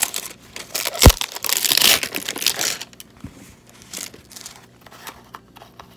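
Crinkling and rustling of packaging as a plastic herbal tea bottle is handled, with one solid knock about a second in. After about three seconds it thins to light, scattered clicks and handling noises.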